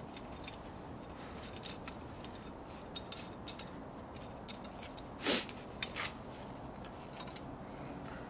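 Light metallic clicks and clinks from a C-clamp being turned by hand to press a brake caliper's pistons back into their bores, with one louder, longer clank about five seconds in.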